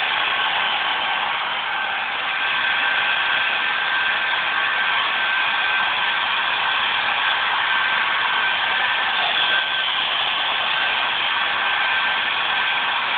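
Handheld hair dryer blowing steadily: a constant rush of air with a thin steady whine in it.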